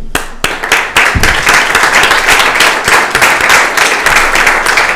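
Audience applauding: a few scattered claps at first, then many hands clapping steadily from about a second in.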